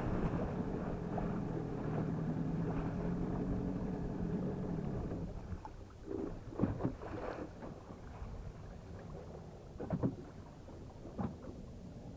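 Outboard motor on a small aluminium boat running at low throttle after being throttled back, then stopping about five seconds in. After that there is wind noise and a few sharp knocks.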